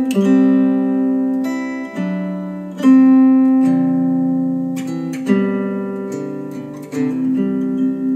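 Music played through KEF R3 bookshelf speakers driven by a Marantz PM7000N amplifier: slow plucked acoustic-guitar chords, each struck and left to ring out, a new chord about every two seconds.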